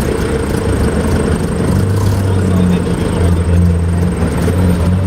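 Vintage sports car engine running at steady revs, its note stepping up in pitch about two seconds in and then held.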